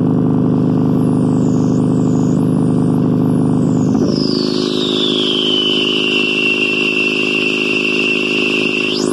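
Electronic synthesizer noise music: a dense buzzing drone under high whistling tones that sweep down in pitch, first in several short falls, then in one long glide that settles into a steady high tone. About four seconds in the drone drops away to a thinner, steadier hum.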